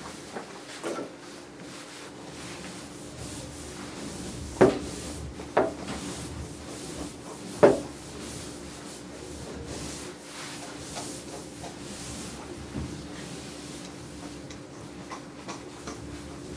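A grooming brush rubbing through a small dog's coat in repeated strokes, with three sharp knocks about halfway through and a steady hum underneath.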